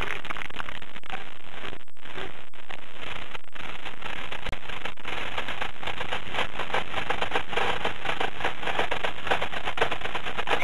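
Stadium crowd applauding, a dense crackling clatter of many clapping hands that holds steady throughout.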